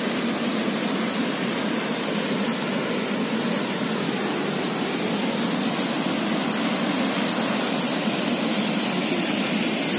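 Water rushing steadily through a dam's open sluice gates into the churning, foaming basin below, an even noise with no breaks.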